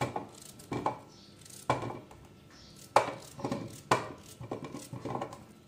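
Raw pumpkin being cut into chunks over a stainless steel bowl: about five sharp knocks, each with a short metallic ring, and a few lighter clicks between them.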